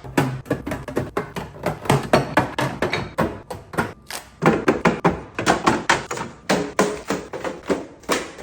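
A quick run of taps, clicks and thunks as food items and containers are set down and moved about inside a refrigerator.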